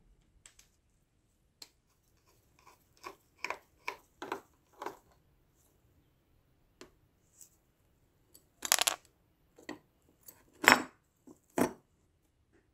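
Small metal parts of a rusty metal toy Colt 1911 being handled and taken apart by hand on a wooden workbench: a run of quick clicks and scrapes, then a few louder metal clacks in the last few seconds.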